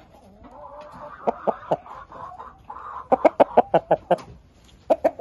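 Chicken clucking: a drawn-out, wavering call in the first couple of seconds, then a quick run of short, sharp clucks about three seconds in, and two more near the end.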